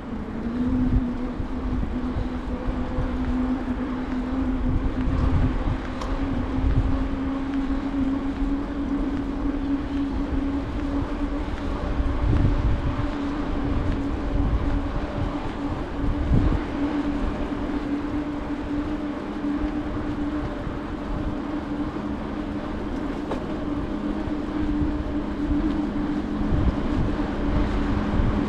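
A bicycle riding along on pavement: a steady tyre hum that creeps slightly higher in pitch as the bike goes, over wind buffeting the microphone in irregular low gusts.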